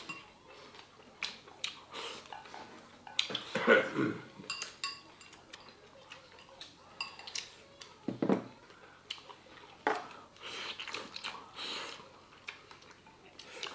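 Chopsticks and spoons clicking against bowls and a hot pot during a meal, with scattered sharp taps and a couple of short murmured voice sounds.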